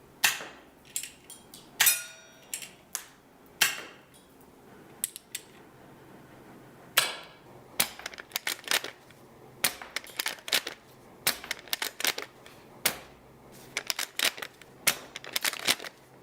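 Airsoft guns clicking and snapping: sharp mechanical actions, some in quick runs, with a short metallic ring about two seconds in and the loudest snap about seven seconds in.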